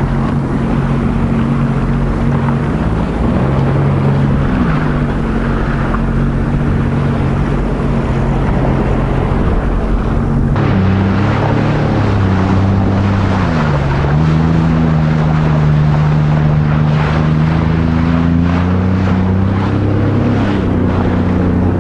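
Jet ski engine running under way, its pitch rising and falling several times as the throttle is worked, over the rush of water.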